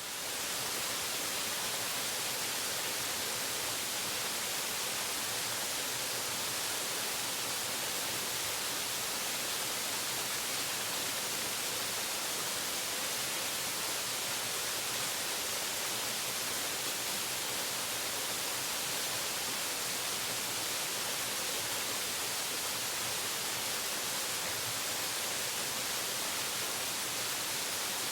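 Waterfall: water falling and rushing steadily, an even hiss strongest in the high range and unchanging throughout.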